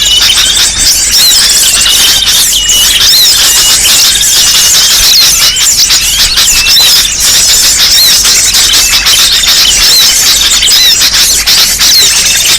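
Many small birds chirping and twittering at once in a loud, dense, agitated chatter of short high-pitched calls, the kind of bird-lure (pikat) recording used to draw small birds in.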